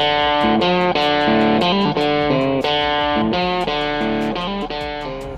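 Music: an electric guitar playing a run of plucked notes and chords, changing about twice a second.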